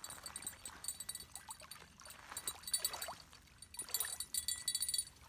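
Small bell on a fishing rod jingling in several short bursts, with a landed striped bass flopping on the gravel.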